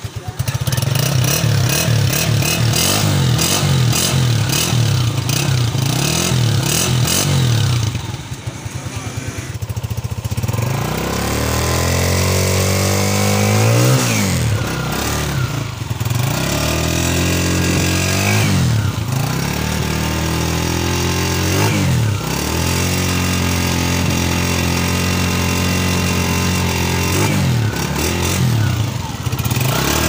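2023 Honda CG125's air-cooled single-cylinder four-stroke engine idling steadily, then, from about ten seconds in, revved in a series of short throttle blips, its pitch rising and falling each time.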